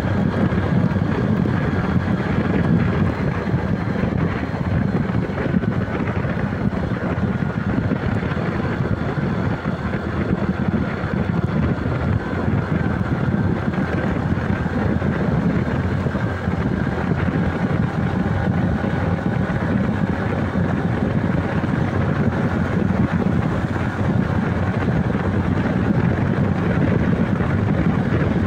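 Bajaj Platino 110 motorcycle's single-cylinder four-stroke engine running steadily while riding, mixed with wind noise on the microphone.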